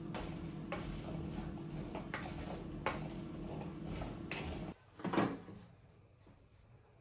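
A utensil clinks and scrapes against a bowl as gnocchi are tossed, about once every half second to second, over a steady low hum. A little past halfway it cuts to one louder clatter, typical of an air fryer basket being slid out, and then it goes quiet.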